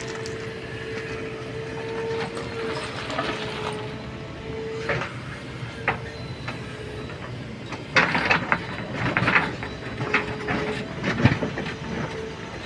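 JCB 3DX backhoe loader's diesel engine and hydraulics running with a steady whine. The steel bucket clanks and scrapes against stones, with scattered knocks that come thickest about eight to nine and a half seconds in and again near the end.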